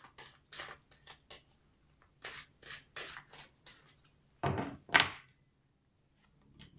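A deck of tarot cards being shuffled by hand: a run of short card flicks and slaps, with two louder slaps about four and a half and five seconds in.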